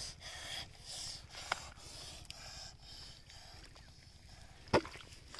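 Hands digging and squelching in wet mud, faint and scattered, with one short sharp smack near the end.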